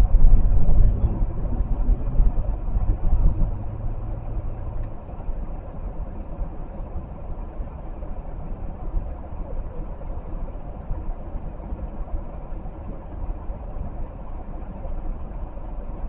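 Car engine and road noise heard from inside a moving car, a steady low rumble with a hum that is louder for the first few seconds, then eases to a lower, even level.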